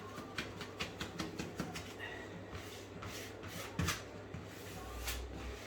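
Wallpaper rustling and rubbing as it is handled and smoothed onto the wall, with a quick run of light ticks in the first couple of seconds and scattered ones after.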